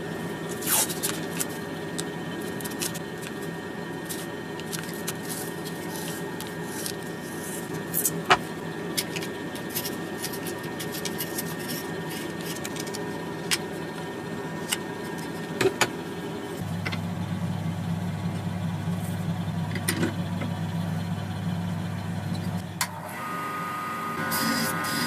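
An electric power tool's motor running steadily, with scattered sharp clicks and taps. The hum deepens and grows stronger about two-thirds of the way through, then shifts again near the end.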